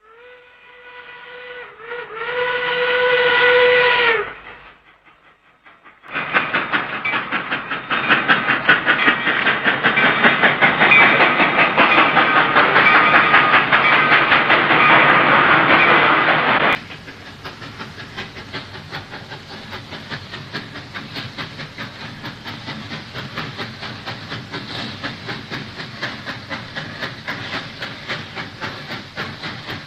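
Steam locomotive whistle sounding one long blast that swells louder and stops. After a short pause comes the rapid exhaust chuffing of a steam locomotive working, loud at first, then dropping suddenly to a quieter chuffing.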